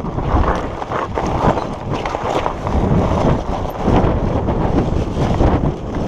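Wind buffeting the microphone while a mountain bike rolls down a loose volcanic gravel trail, its tyres crunching over stones and the bike rattling with many small knocks.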